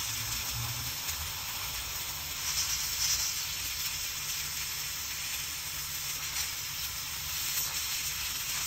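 Steady hiss of compressed air blowing out of a hot-air plastic welding gun's heated nozzle as it melts a plastic filler strip, with a faint low hum underneath.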